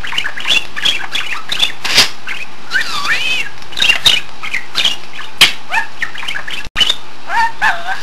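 Pet budgerigar chattering: a fast, continuous stream of warbles, squeaky whistles and sharp clicks, the bird's mimicked talking.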